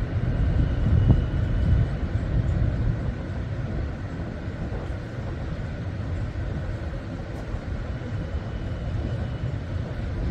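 Background rumble on a ship's deck, uneven and low, a little louder in the first couple of seconds, with a faint steady machinery hum above it.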